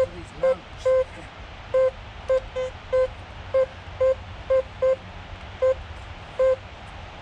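Fisher F75 metal detector giving short single-pitch beeps, about two a second at uneven spacing, as its coil sweeps over leaf litter strewn with metal targets in what the detectorist calls a junk area.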